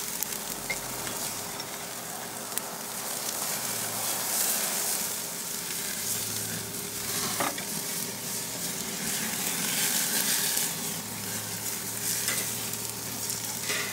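Leg of lamb sizzling and crackling on the grate of a Kamado Joe charcoal grill, basted with ghee and sauce and being blackened over flaring coals, with a steady spitting hiss.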